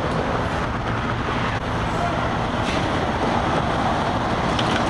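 Steady rumble of vehicle engines and road traffic, with no distinct bangs or other separate events.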